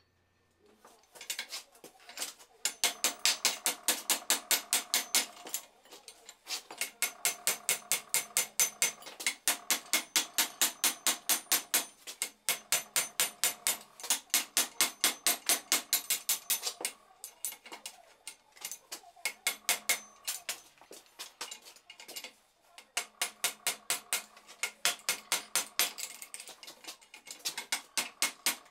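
Hand hammer striking a red-hot steel rod over the horn of an anvil vise, forging the curve of a pelican hook: quick, even blows about three a second with a metallic ring, in runs of a few seconds broken by short pauses.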